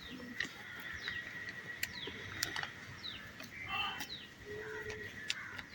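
Birds chirping: short falling chirps repeating throughout over a faint steady high tone, with a few sharp clicks.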